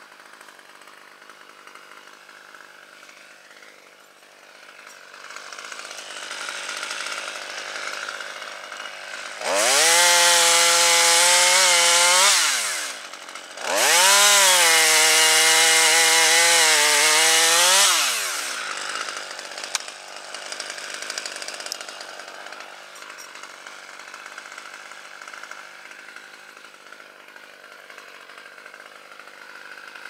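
Husqvarna T540 XP top-handle chainsaw idling, then revved up to full speed twice, for about three and then four seconds, with a brief dip between, before dropping back to idle.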